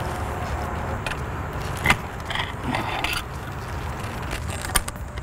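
Hot-stick tools clicking and clinking against the preformed rods of a splice shunt on an overhead conductor: a few sharp clicks, the loudest about two seconds in, over a steady low rumble.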